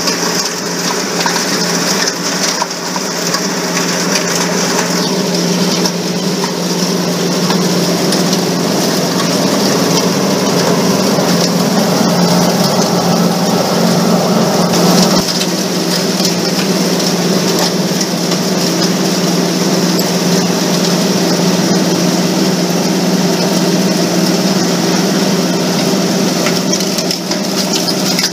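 Electric-motor-driven rock-crushing machinery running, crunching and clattering as gold-quartz ore is fed into a 6x10 jaw crusher, over a steady machine hum. About halfway through the crushing clatter cuts off and only the steady hum and hiss of the running mill equipment remain.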